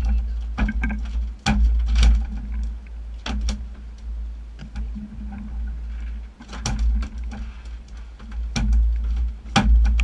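Low rumble of wind and the boat's twin outboard motors, rising and falling, with scattered sharp clicks and knocks.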